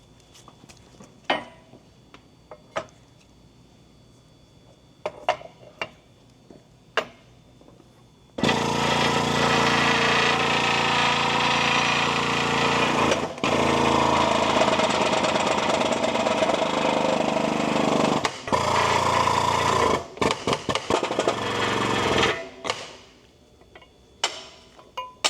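Light clicks and knocks of metal parts being handled, then a loud power tool running steadily for about fourteen seconds, cutting off for an instant twice, before stopping abruptly and giving way to more clicks and clanks.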